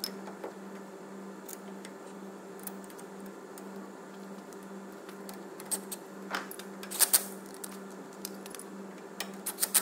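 Ford Ranger front brake caliper being fitted back over new pads and carrier: scattered light metallic clicks and knocks, the loudest a sharp double click about two-thirds of the way through, over a steady hum.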